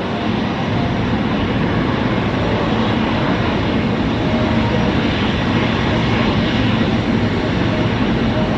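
Boeing 777-300ER's GE90 jet engines running with a steady, even rumble as the airliner moves along the runway.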